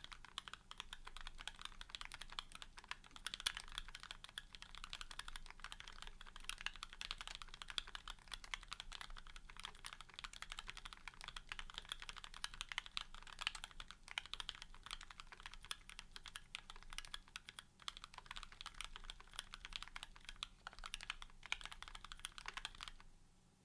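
Continuous fast typing on a custom mechanical keyboard with lubed Gateron Ink linear switches and TX switch films, mounted on a carbon fiber plate and fitted with GMK ABS keycaps. The keystrokes come as a dense run of clicks and clacks that stops just before the end.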